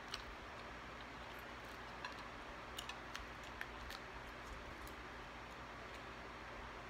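Faint clicks and crinkles of a small plastic sauce packet being handled and squeezed, a scatter of sharp ticks mostly in the middle of the stretch, over a steady low hiss.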